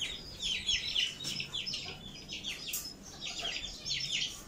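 Aseel chicks in a wire cage peeping: a rapid, continuous run of short, high, falling cheeps, several a second.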